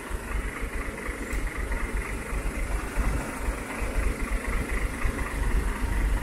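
Steady low rumble of an idling diesel truck engine, with no sharp events.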